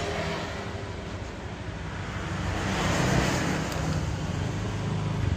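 Traffic noise: a passing vehicle's engine hum and road noise, swelling to a peak about three seconds in and then easing off.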